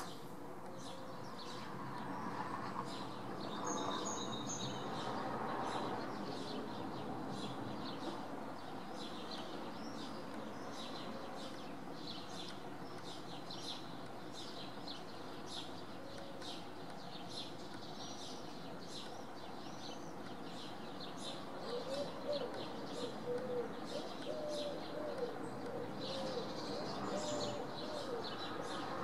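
Small birds chirping over and over over a steady background noise, with a feral pigeon cooing in a low, wavering series during the last several seconds.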